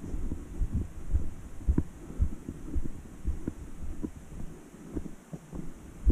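Footsteps of a person walking a dirt trail: low, muffled thuds at about two a second, slightly uneven in timing.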